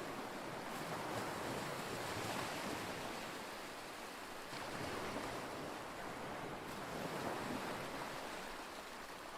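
Sea surf washing onto a beach, a steady rushing noise that swells and eases every few seconds, with strong wind blowing.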